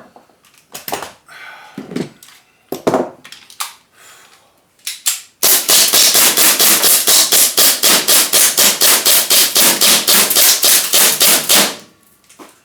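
Gas-powered airsoft gun firing: a few single shots, then a long full-auto burst of evenly spaced sharp cracks lasting about six seconds, which stops suddenly.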